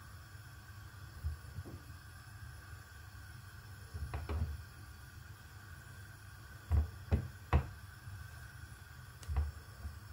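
Raw potatoes being put into a pot of water and knocking dully against each other and the pot, a few scattered knocks with three in quick succession about seven seconds in, over a low steady hum.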